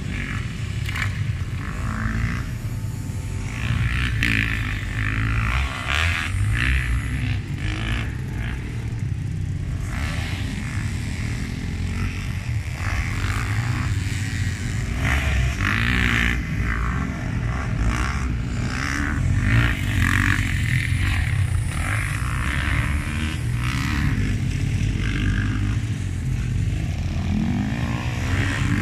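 Motocross dirt bike engine revving up and dropping off repeatedly as it is ridden around a dirt track, over a steady low rumble.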